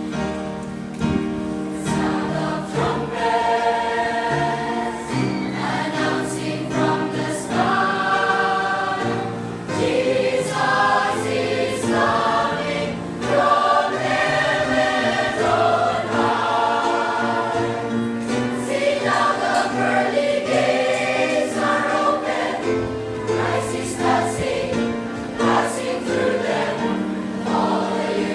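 Church choir singing a hymn.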